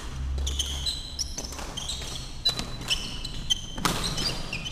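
Badminton shoes squeaking on a wooden sports-hall floor during a rally: many short high squeaks as players start, stop and turn. Several sharp racket hits on the shuttlecock fall in the second half, with the echo of a large hall.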